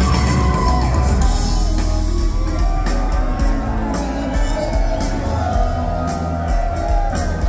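A live rock band playing an instrumental jam with several electric guitars, drums and keyboard, heard as an audience recording through the venue's PA.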